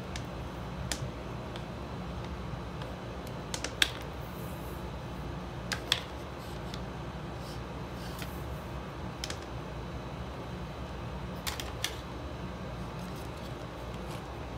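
Scattered sharp clicks and taps, several in quick pairs, as the white USB-C to Lightning charging cable and its plugs are handled and unwrapped, over a steady low hum.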